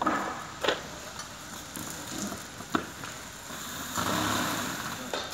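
A few sharp clicks and knocks of hard office-chair parts being handled during assembly, then a louder rustling noise of about a second near the end.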